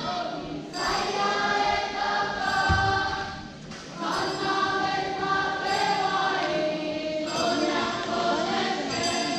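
A large group of voices singing together in harmony, a choral song in sung phrases with a short break a little past the middle.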